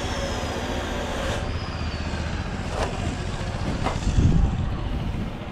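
Outdoor construction-site background: a steady low rumble with a few sharp knocks, and a heavier thump about four seconds in.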